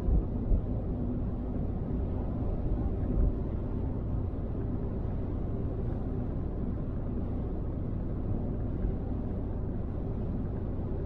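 A car driving at motorway speed, its steady low road and engine rumble heard from inside the cabin, with a couple of short low thumps in the first second.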